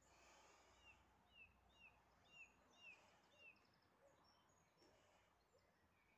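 Faint bird chirps over near-silent room tone: a run of about six short calls, each sliding downward in pitch, about two a second, with a few fainter chirps afterwards.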